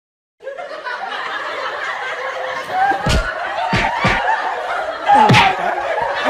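People laughing and snickering, starting abruptly half a second in, with a few sharp smacks about three, four and five seconds in.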